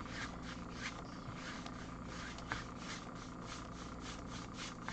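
Acrylic paint being brushed and scrubbed onto a stretched canvas: a run of quick, soft, scratchy strokes, several a second.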